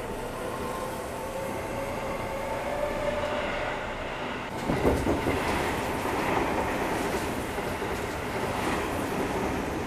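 Seibu 6000 series commuter train running past on the adjacent track, wheels clacking over the rail joints, heard from inside a train standing alongside. About halfway through the sound turns suddenly louder and rougher and stays so.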